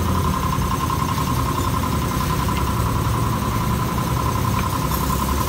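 A vehicle engine idling steadily, with a steady high-pitched whine over it and a few faint clicks.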